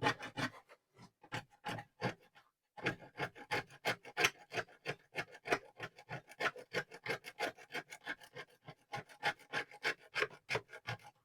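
Rapid scraping strokes of a hand tool against the speaker's hot glue and housing, about four or five a second, with a short pause about two and a half seconds in.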